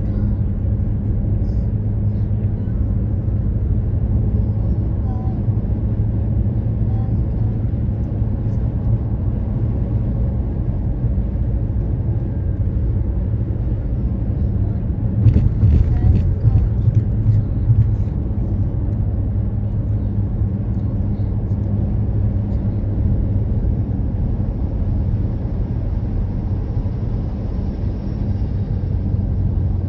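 Steady low road and engine rumble heard inside a car's cabin at highway speed. It grows louder and rougher, with a few sharp clicks, for a few seconds about halfway through.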